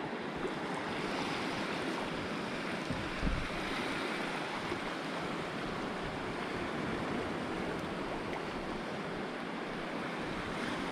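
Steady wash of shallow reef water and surf, with an uneven low rumble of wind on the microphone.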